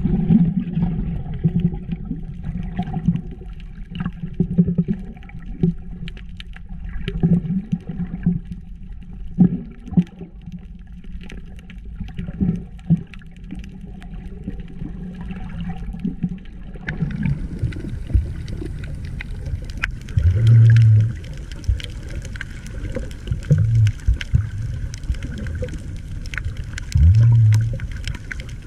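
Underwater ambience picked up by a submerged camera: a steady low rumble with scattered clicks and crackles. Partway through it turns brighter and hissier, and three short, loud low hums stand out in the second half.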